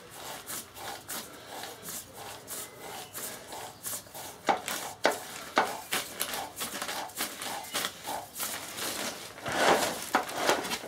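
VW 1303S Beetle gearbox turned over by hand in gear: irregular clicks, knocks and rubbing from the gears and casing, getting busier and louder near the end.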